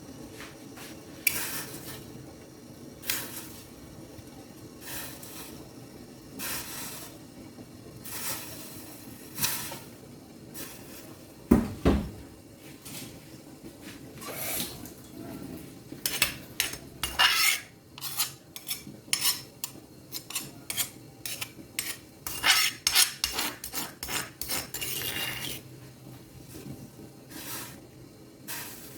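Cutlery clinking and scraping against a plate during a meal, scattered at first and then coming quickly in the second half, with one heavier knock about halfway through.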